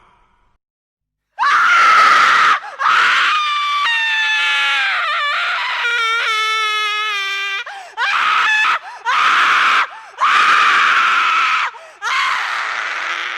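A run of about seven loud, high-pitched human screams, starting after a second and a half of silence. The longer ones in the middle slide down in pitch and waver shakily, the rest are short shrieks.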